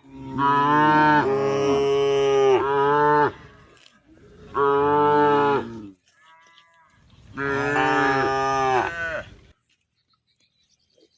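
Cow mooing three times in long, loud calls, the first the longest at about three seconds, with a faint shorter call between the second and third.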